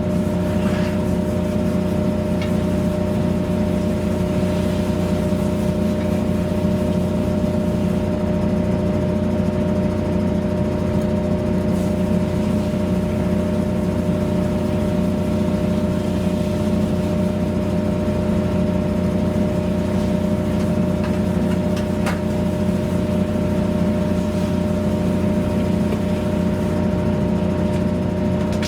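A motor running steadily with a constant hum that does not change in pitch or level, with a few faint clicks.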